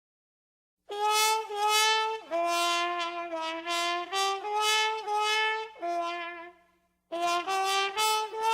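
Horn section of a street brass band playing a tune in two- and three-part harmony, held notes in short phrases. It starts about a second in and breaks off briefly near the end before the next phrase.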